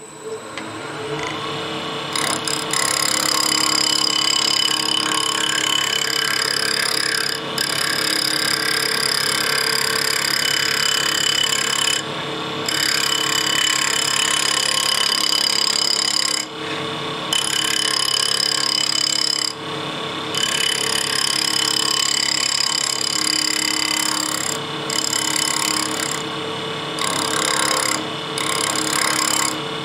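Wood lathe starting up and spinning an off-centre letter-opener blank, then a turning tool cutting it. The cut is a steady hiss over the motor's hum and breaks off briefly several times as the tool lifts between passes to take the bumps out of the blade side.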